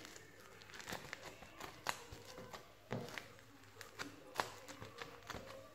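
Slime being squeezed and pulled apart in the hands: faint, irregular sticky clicks and crackles, with sharper pops about two seconds in and again a little past four seconds.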